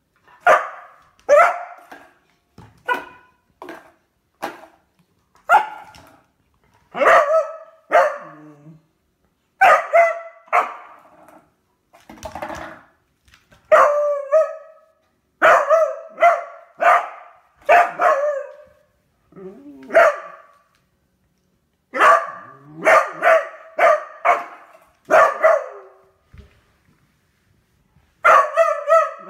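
Beagle barking over and over at a new toy: short, high barks, mostly about a second apart and sometimes in quick runs, with a short lull near the end. The barks are play barks.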